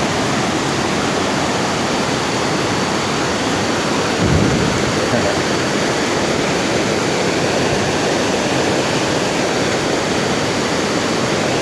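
Fast-flowing river water rushing steadily. There is a brief low thump about four seconds in.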